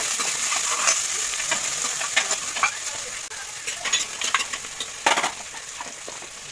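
Chopped onions frying in hot oil with a steady sizzle, stirred with a steel ladle that scrapes and clinks against the sides of an aluminium pan and a clay pot; a louder clatter about five seconds in.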